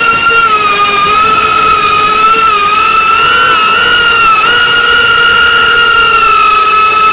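FPV quadcopter's brushless motors and propellers whining steadily, picked up by the small camera riding on the drone. The pitch sags slightly about a second in and again near three seconds, then steps up a little about four and a half seconds in as the throttle changes.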